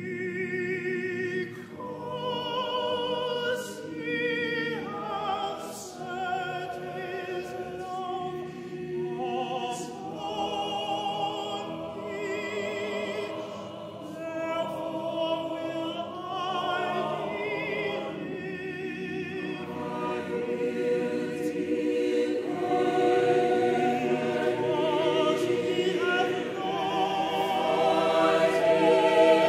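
Mixed choir singing a sacred choral anthem with string accompaniment, a male solo voice with wide vibrato standing out. The singing swells louder over the last ten seconds or so.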